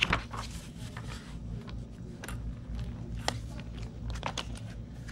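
Paper pages being turned and handled: scattered crisp rustles, crinkles and light taps, over a low steady hum.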